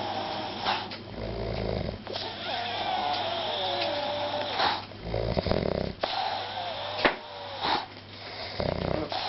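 Snoring: a low rasping breath about every three and a half seconds, with a wavering, gliding whistle between the breaths and a few sharp clicks.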